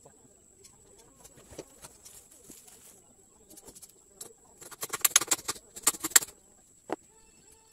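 Two short bursts of rapid clattering and rattling as wooden poles and metal pipes of a hut frame are handled, followed by a single knock near the end. A steady high-pitched whine runs underneath.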